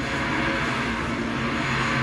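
Electric arc welding: a steady crackle and hiss from the arc, with a low steady hum underneath.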